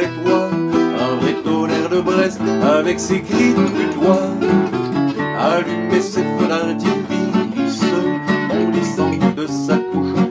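Two gypsy-jazz-style acoustic guitars in an instrumental passage: the lead guitar picks a quick single-note melody over the rhythm guitar's steady strummed chords.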